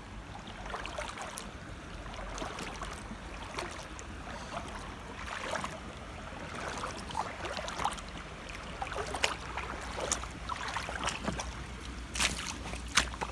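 Wellington boots wading through shallow water, sloshing and splashing with each step, then a few sharper steps onto muddy ground near the end.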